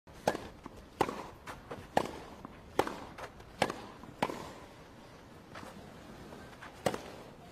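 Sharp plastic clacks, about one a second, as balls are knocked around inside a plastic circular cat track toy, with lighter clicks of the balls rolling between them. The clacks thin out after about four seconds, with one more near the end.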